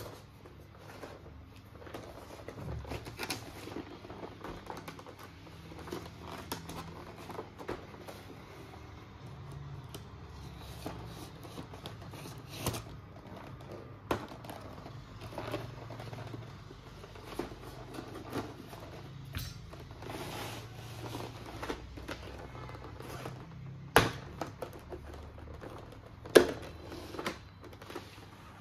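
Hands unpacking and handling a small plastic toy set: scattered clicks, taps and rustles of the pieces and packaging, with two sharper knocks near the end.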